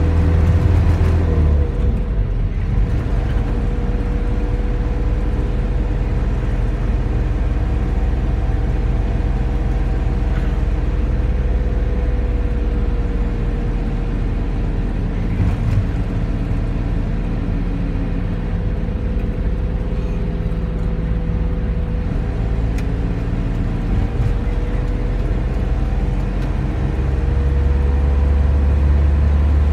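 Engine and road noise heard from inside a moving vehicle: a steady rumble with a faint whine that drifts slightly in pitch. A deep drone eases off a second or two in and comes back near the end.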